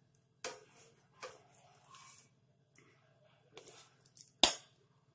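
Steel ladle knocking and scraping against a stainless steel pressure cooker while scooping cooked khichdi out into a plastic bowl: a few short clicks and knocks, the loudest about four and a half seconds in, over a faint low hum.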